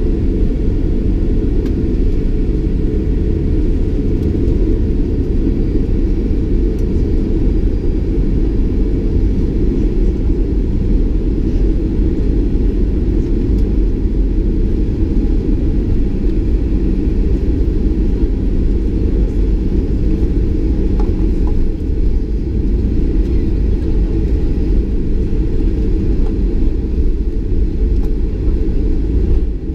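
Boeing 737-800 cabin noise while taxiing, heard at a window seat: a steady low rumble from the CFM56-7B engines at taxi power and the aircraft rolling along the taxiway.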